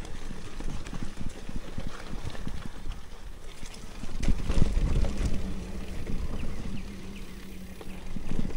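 Mountain bike rolling over rough singletrack: tyres and frame rattling and knocking over bumps, with wind rumbling on the microphone. A cluster of harder jolts comes about halfway, followed by a steady low hum for a few seconds.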